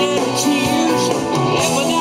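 Rock band playing live on stage.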